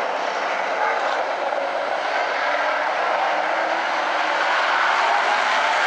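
A pack of street stock race cars' engines running together around the track, a steady dense engine noise that grows slightly louder in the second half.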